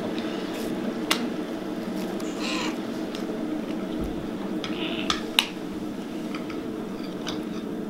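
Cutlery clinking against plates during a meal: a few sharp clicks, the loudest pair about five seconds in, over a steady low background hum, with a short higher-pitched sound about two and a half seconds in.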